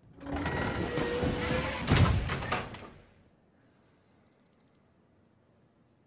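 Heavy metal door sliding with a scraping rush for about three seconds, with a loud clunk about two seconds in, then fading out.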